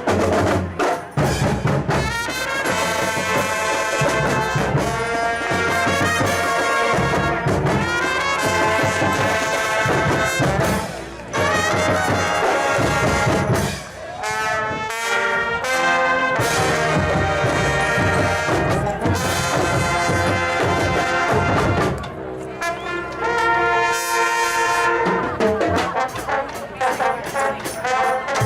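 Marching band playing a brass tune, the horns dropping out briefly twice.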